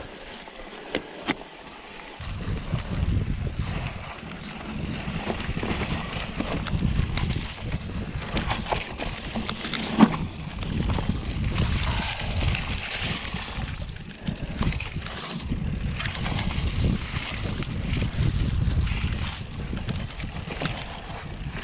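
Mountain bike riding over a rough stone and dirt trail: a steady rumble from the tyres and ground with frequent small rattles and knocks from the bike. The rumble sets in about two seconds in, and a single sharper knock comes about halfway through.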